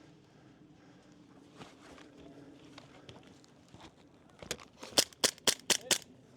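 Wolverine MTW HPA airsoft rifle firing about six quick single shots in a second and a half, each a sharp snap of released air.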